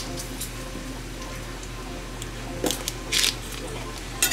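Bacon sizzling in a pan over the steady hum of a running dishwasher. A knife cuts through a stick of butter, making a small click and a couple of brief soft scrapes near the end.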